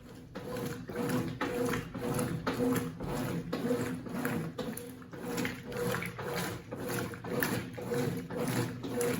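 Consul 8 kg washing machine (CWC08) working a single-bed quilt, its motor humming in short repeated pulses, about two a second, as the wash action turns back and forth.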